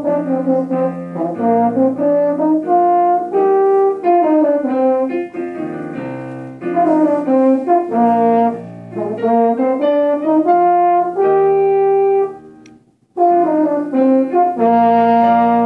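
A student French horn player plays a quick melody of short, detached notes and some held ones, with piano accompaniment underneath. There is a brief pause in the playing about thirteen seconds in.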